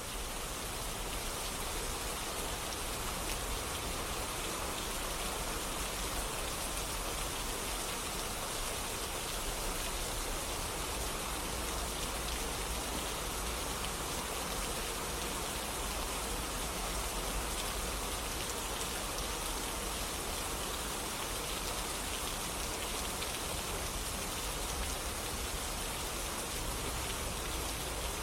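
Steady rain falling, an even patter of drops with no break or change.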